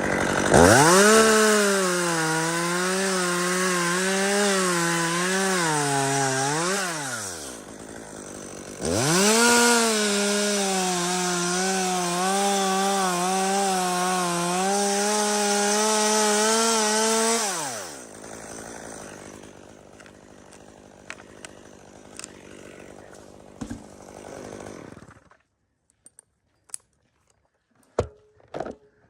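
Two-stroke chainsaw revved up and cutting wood in two long runs of about seven and eight seconds, the engine note wavering under load and dropping away at the end of each run. A quieter, lower noise follows, then it goes nearly silent apart from a few sharp clicks near the end.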